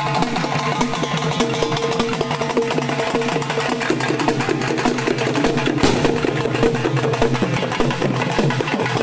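Processional barrel drums beaten with sticks in a fast, dense rhythm, with a long held note sounding over the drumming through the middle of the stretch.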